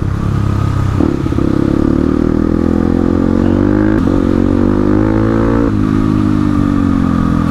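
Crossfire RM250 dirt bike's engine, heard from the rider's seat while riding, pulling with its pitch rising for several seconds, then dropping about three-quarters of the way through and falling off as the throttle eases.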